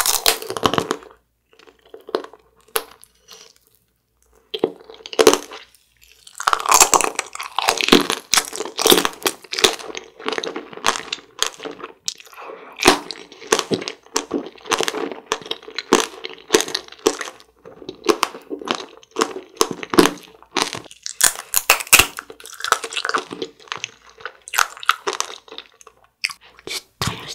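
Eyeball-jelly tanghulu being bitten and chewed: the hard sugar-candy shell cracks and crunches, mixed with chewing of the soft jelly inside. A sharp crack at the start, a few quieter seconds with only scattered clicks, then steady, dense crackly crunching from about six seconds in.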